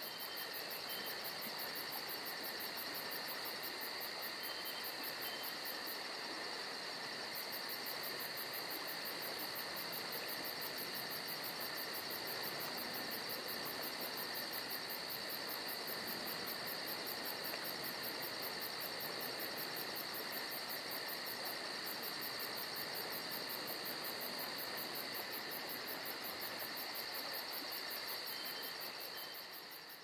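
Steady chorus of trilling insects, a shrill unbroken drone with a rapid fine pulse and no breaks.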